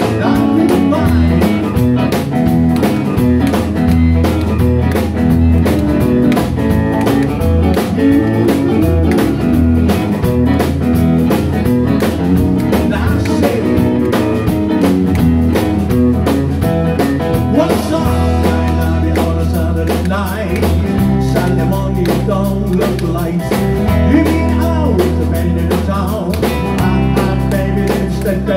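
Live rockabilly band playing: electric guitars, electric bass and a drum kit, with a steady beat.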